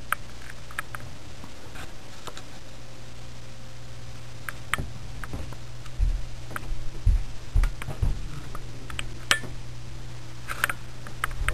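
Handling noise from a handheld camcorder being moved: scattered light clicks and a few low bumps between about six and nine seconds in, over a steady low hum.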